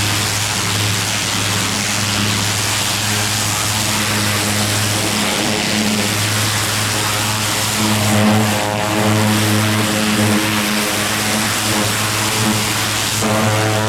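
Pressure washer running steadily: a constant engine drone under the hiss of the high-pressure water spray. The engine note grows fuller about eight seconds in.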